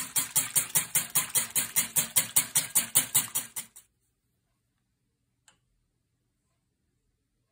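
Wire whisk beating an egg in a ceramic bowl, the wires clicking against the bowl in a fast even rhythm of about five or six strokes a second. It stops abruptly a little before halfway, followed by one faint tap.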